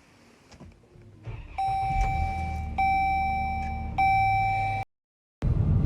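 A 2011 Dodge Journey's dashboard warning chime sounding three times, about a second apart, a steady high tone over a low rumble. The sound cuts off abruptly near the end.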